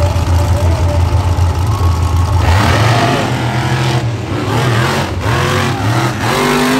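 Monster truck engine running with a heavy low rumble, then from about halfway through revving up and down in short repeated blips.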